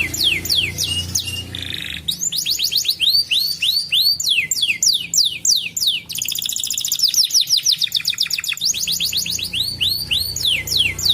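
Canary singing: quick series of falling whistled notes, several a second, switching from one repeated phrase to the next, with a fast, dense trill a little past the middle. A low steady hum lies under the song near the start and again near the end.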